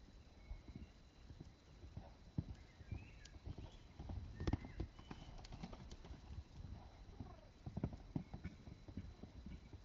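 A horse's hooves thudding on arena sand as it canters loose, loudest about halfway through as it passes close by.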